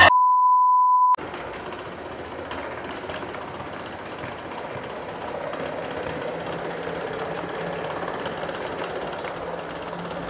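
A steady high-pitched censor bleep lasting about a second and cutting off suddenly, then an HO scale model train running along the track, a quieter, even running noise.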